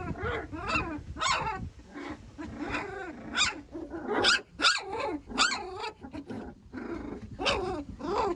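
A dog barking over and over, in short calls about two a second with brief gaps.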